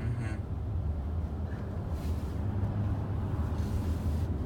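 Steady low road and tyre rumble inside the cabin of a Tesla Model X electric SUV cruising at freeway speed, with no engine note. Faint swells of hiss come about halfway through and again near the end.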